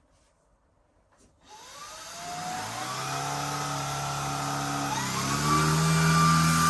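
Shark IZ320UK cordless stick vacuum switching on about a second and a half in, its motor whine rising as it spins up with the brush roll running. About five seconds in it steps up again to a higher pitch and louder as it goes to full turbo power.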